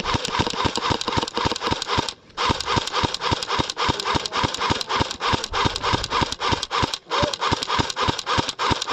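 Electric airsoft rifle firing on full auto in long bursts, a rapid even rattle of about nine shots a second from the gearbox cycling, with short breaks about two seconds in and about seven seconds in.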